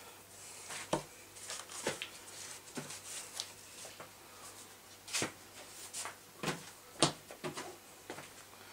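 Scattered light knocks and clicks of small objects being handled and set down on a table, about seven in all, the sharpest about five and seven seconds in.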